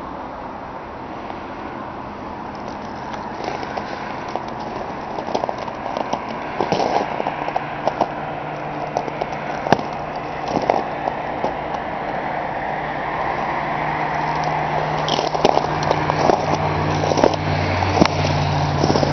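Footsteps crunching on ice-crusted snow, with sharp irregular cracks and clicks, over a steady rumbling background. A low, steady motor-like hum comes in about halfway through and grows toward the end.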